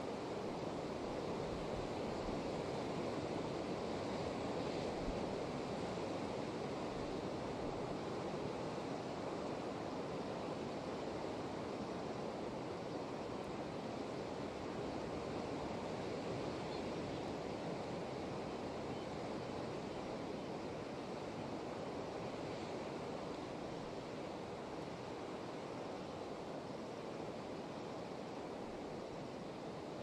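Ocean surf breaking on rocks below a sea cliff, heard from above as a steady, even wash without separate crashes, with some wind.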